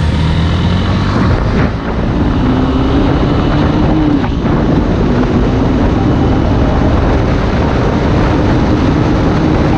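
Motorcycle riding at a steady speed: a steady engine drone under wind rushing over the microphone.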